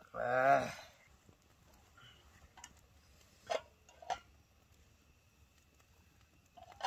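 A short wavering vocal sound from a person, then a few scattered sharp clicks.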